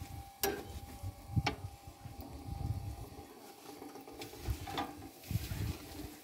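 Metal spit holding a whole sheep being turned by hand with a metal rod: three sharp metallic clicks, about half a second in, about a second and a half in and near five seconds, over a low rumble.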